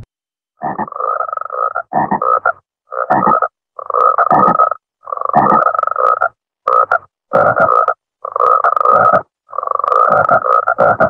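Frog croaking in a run of about nine rasping calls, each half a second to a second long, separated by brief gaps of dead silence. It is a cut-up frog recording used as a giant-monster sound effect.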